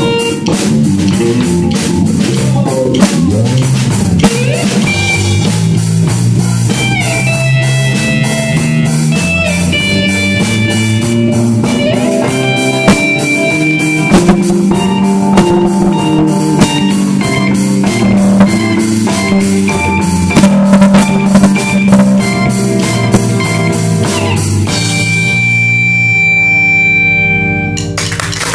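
Live rock band playing with drum kit, electric guitar and bass, ending on a final chord that is held and rings out for about three seconds near the end once the drums stop.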